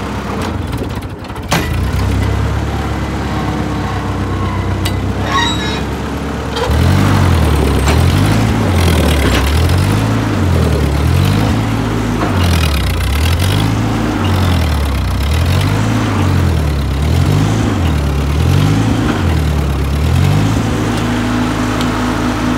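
Ford 8N tractor's four-cylinder flathead engine running: steady at first, then from about seven seconds in its speed rises and falls over and over, about every two seconds, before settling at a steadier, higher speed near the end.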